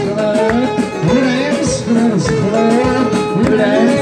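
Azerbaijani meyxana: a man chanting rhymed verse into a microphone over an amplified instrumental backing.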